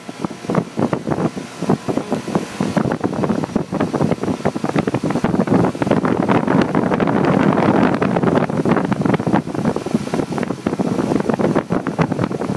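Guardian central air conditioner's outdoor condenser unit running shortly after starting up, with an uneven, gusty rushing noise.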